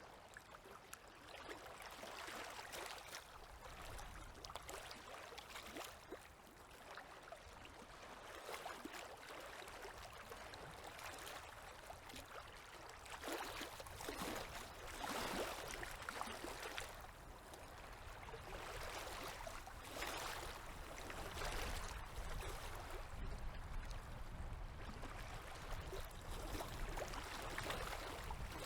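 Small river waves lapping and washing against the shore, swelling and fading irregularly every couple of seconds.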